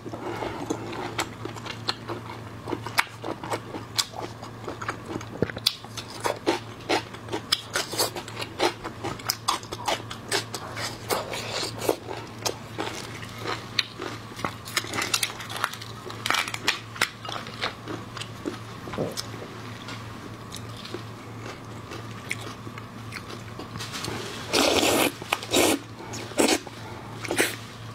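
Close-miked chewing and crunching of raw soy-marinated seafood, with many short wet clicks and smacks. Louder crunching bites come near the end as a large raw red prawn is bitten into. A steady low hum runs underneath.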